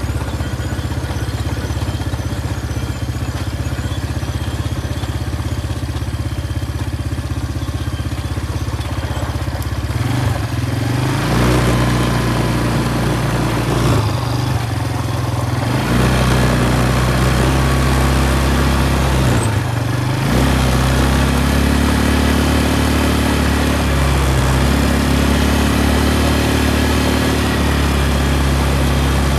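Quad bike (ATV) engine running steadily at low speed, then picking up about ten seconds in and running louder, its pitch shifting up and down with a rushing noise over it. The engine dips briefly at about twenty seconds, then runs on.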